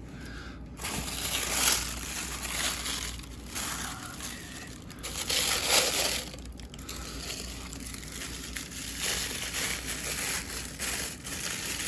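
Packing material crinkling, rustling and crunching in uneven bursts as a boxed statue part is pulled out and unwrapped.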